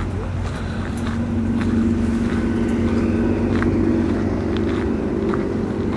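A motor vehicle's engine running close by, growing louder and slightly higher about a second in, then holding steady.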